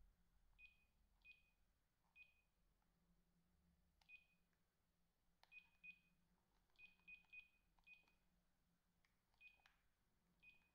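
Keypad beeps from a Samsung SP-R5210pp cordless phone handset as its keys are pressed: about a dozen short, faint, high-pitched beeps, unevenly spaced and sometimes in quick runs of two or three, with a few soft key clicks.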